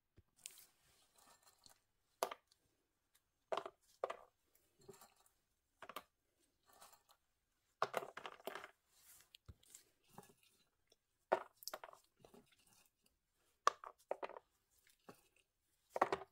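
Faint, irregular little taps and rustles of chocolate chips being dropped by a gloved hand into a silicone bundt mould. Near the end, walnut pieces fall in.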